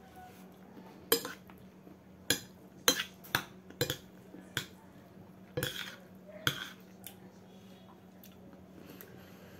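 Metal spoon clinking and scraping against a bowl as food is scooped up: about ten sharp clinks, some in quick pairs, over the first seven seconds, then quiet.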